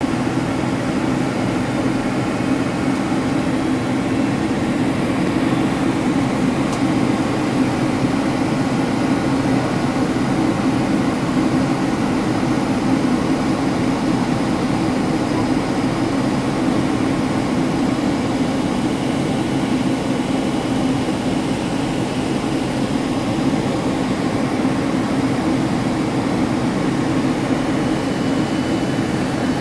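Boeing 767-300 cabin noise heard inside the cabin at a window seat near the wing engine: a steady low roar of the jet engines and rushing air during the descent on approach.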